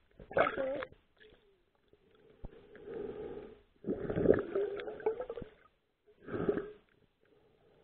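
Water sloshing and gurgling in four irregular bursts, heard through a camera held just under the surface of the sea.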